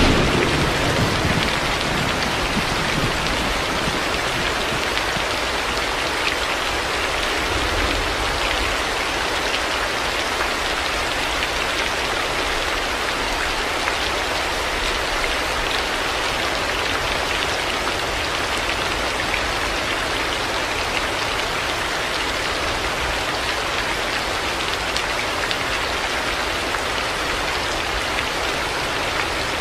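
Heavy rain falling steadily, a dense, even hiss of drops without a break.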